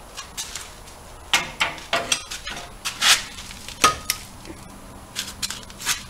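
Irregular metallic clinks and clanks of a long torque wrench and its socket being handled and fitted onto a wheel nut. One clank about four seconds in rings briefly.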